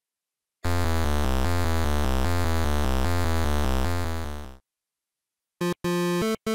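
Chiptune-style synthesizer sound: a low, fast-pulsing electronic tone holds steady for about four seconds, then fades out. After a short silence, clipped staccato synth notes begin near the end.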